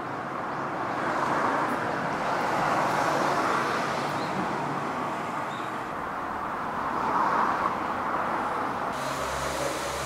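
Road traffic: cars passing on the street, their tyre and engine noise swelling twice, first a second or so in and again about seven seconds in, with a low engine hum joining near the end.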